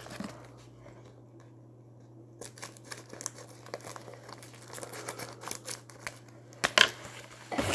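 Clear plastic packaging crinkling as it is handled and cut open with scissors: a scatter of crackles and snips starting about two seconds in, with one louder snap near the end.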